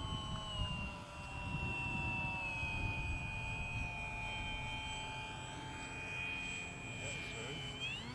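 Radio-controlled model plane's motor and propeller droning in flight as it passes low, the pitch sinking slowly, then rising sharply near the end.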